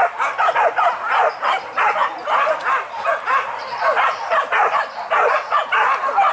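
A pack of hunting dogs barking and yelping excitedly, many short overlapping calls several times a second without a break.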